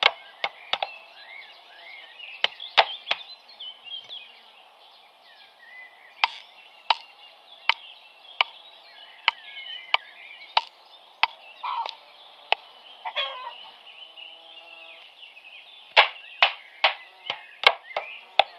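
Repeated hammer blows driving tight-fitting wooden spokes into the mortises of a wooden cartwheel hub, struck about every 0.7 seconds, with a quicker run of blows near the end. Birds chirp faintly in the background.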